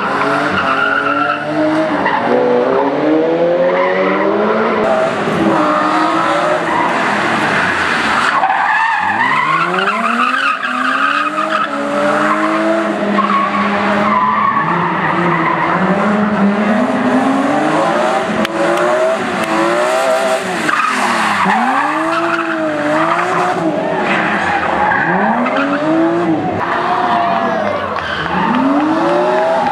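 BMW M3's straight-six engine revving hard and falling back again and again as the car is thrown sideways through a slalom. Its tyres squeal and skid while spinning.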